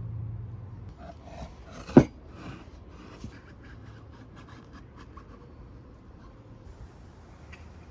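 Short rubbing and scraping strokes on cypress wood, with one sharp wooden knock about two seconds in, the loudest sound; after that it goes quiet apart from faint handling.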